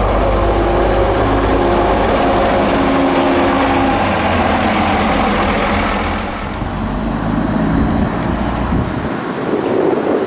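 Diesel engine of a single-deck heritage bus running loudly close by, with a deep rumble; it drops away about six seconds in, leaving quieter engine noise.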